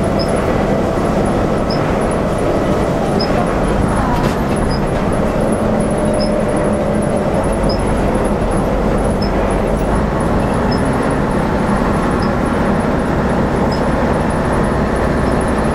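A vintage bus's engine and drivetrain running steadily under way, heard from inside the bus, with road and tyre noise from a wet road. A faint high tick repeats about every second and a half.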